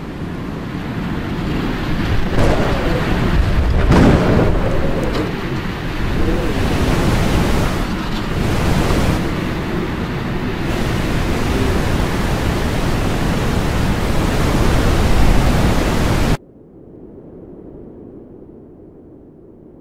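Storm sound of rushing floodwater and wind, with heavy rumbling crashes about two and four seconds in. It cuts off suddenly about three-quarters of the way through, leaving a much fainter hiss.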